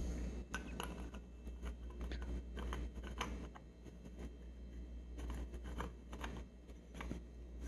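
Metal lightsaber emitter being screwed by hand onto a metal hilt: faint, scattered clicks and light scrapes of the threads and of the parts being handled.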